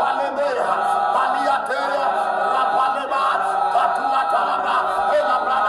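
A group of voices chanting together in a continuous, unbroken stream of overlapping voices.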